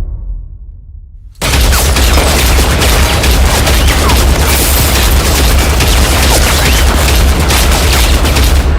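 Film-soundtrack gunfire: after a low boom dies away, a sustained fusillade of heavy automatic fire with a deep booming low end starts abruptly about a second and a half in and cuts off just before the end.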